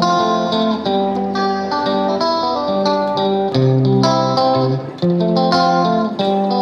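Background music: an instrumental guitar piece, a melody of plucked notes over sustained lower tones.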